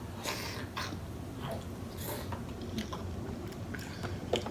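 A person chewing and biting snow crab, with irregular short wet smacks and clicks of mouth sounds.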